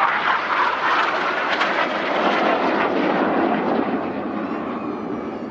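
Several BAE Hawk T1 jets flying past low, their Adour turbofans giving a loud rushing noise that slowly fades toward the end.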